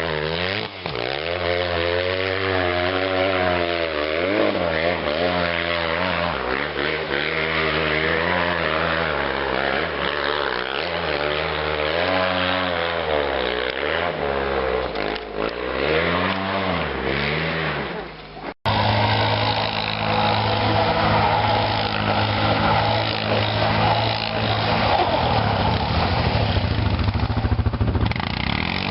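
ATV engine revving up and down over and over as the throttle is worked. About two-thirds of the way through, the sound cuts off abruptly for an instant, then resumes as a steadier engine drone.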